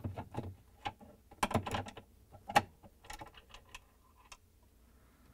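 Phillips screwdriver turning out a screw from a Samsung ice maker's plastic housing: a run of irregular clicks and ticks, the loudest about two and a half seconds in, stopping about four and a half seconds in.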